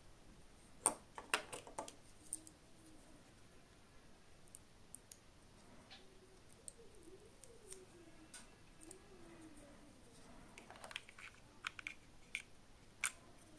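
Small clicks and taps from handling wireless earbuds and their plastic charging case as the earbuds are set into it. The clicks bunch together about a second in and again near the end.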